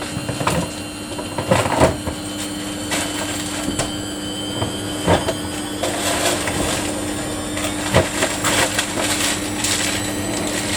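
Samsung washing machine running a Daily Wash 30 cycle: a steady hum with a few sharp knocks and clatters.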